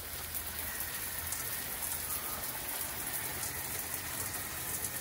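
Steady hiss and patter of falling water, like rain.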